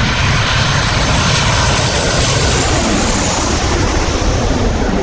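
Loud, steady engine noise of an airplane in flight.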